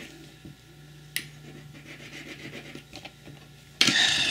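A metal ring being rubbed and scratched across a testing stone in a scratch test for sterling silver. It is a faint, uneven scraping with a sharp click about a second in, and a sudden louder noise starts near the end.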